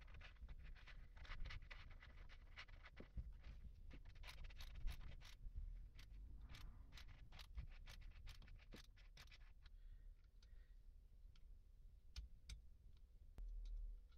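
Faint, irregular small clicks and scrapes of metal on metal as a nut driver turns a bolt on the end cover of a car starter motor being reassembled. The clicks grow sparse after about ten seconds.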